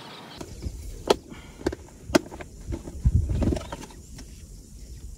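Sharp clicks and light knocks of small objects being handled in a car cab, three clear clicks about half a second apart early on and a low thud about three seconds in.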